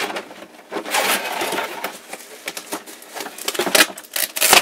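Cardboard box packaging being handled as contents are lifted out: rustling and scraping from about a second in, then a run of sharp clicks and knocks toward the end.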